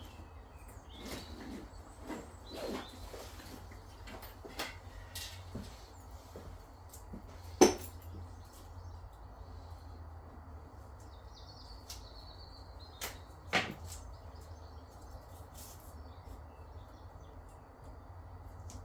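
Scattered small clicks and knocks of hands working around the pipes and fittings under a sink, with two sharp clicks about eight and fourteen seconds in, over a steady low hum.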